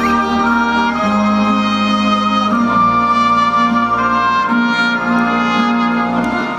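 Instrumental music: a melody in long held notes over a steady bass line, with no singing.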